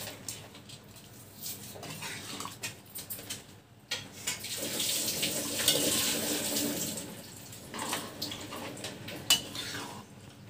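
Metal spatula stirring and scraping through a pan of thin chickpea curry, the gravy sloshing, with occasional knocks against the metal pan. A steadier wet hiss rises in the middle for a couple of seconds.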